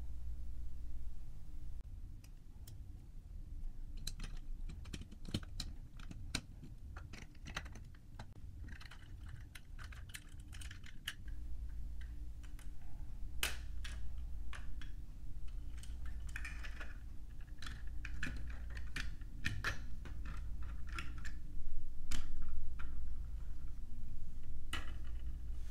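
LEGO plastic bricks and parts clicking and clattering as they are handled and pressed together, in irregular sharp clicks, with a louder clatter near the end.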